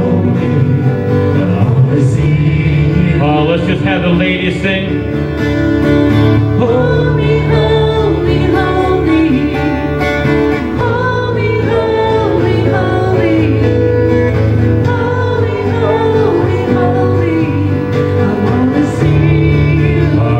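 Live worship band music with guitar and sustained bass notes, and some singing.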